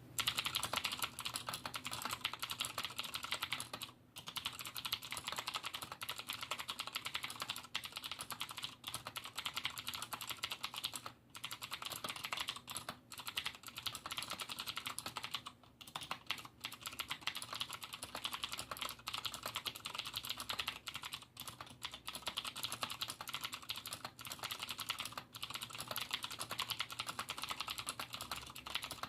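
Fast continuous typing on a Cooler Master QuickFire XTi mechanical keyboard with stock, unlubricated Cherry MX Blue clicky switches: a dense run of sharp key clicks, broken by a few short pauses.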